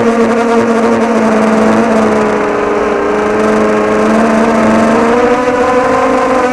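Mini H-frame FPV quadcopter's motors and propellers whining steadily as it flies, the pitch sagging a little in the middle and climbing again near the end as the throttle changes.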